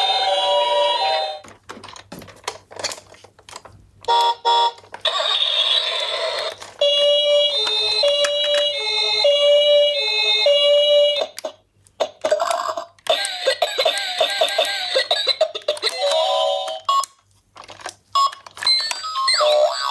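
Electronic sirens of toy ambulances sounding one after another, mostly two-tone hi-lo sirens stepping back and forth between two pitches, with brief silent gaps between toys. A faster warbling siren comes in past the middle, and a gliding wail starts near the end.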